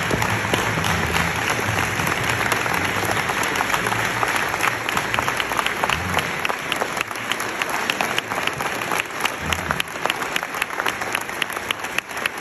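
Audience giving a standing ovation: sustained applause, with sharp close claps standing out from about a third of the way in.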